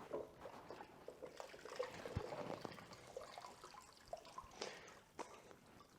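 Water trickling and dripping faintly off a dirt bike's rear brake caliper into a bucket as the caked dirt is wetted to loosen it.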